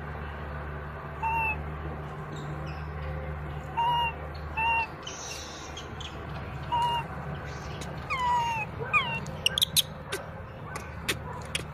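Infant macaque giving short coo calls, one every second or two, then two longer calls that fall in pitch about eight seconds in: a weaning infant crying for its mother. A quick run of sharp clicks follows near the end.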